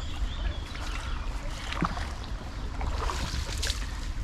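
Wind buffeting the microphone in a steady low rumble, over the even rush of river water, with a few brief clicks.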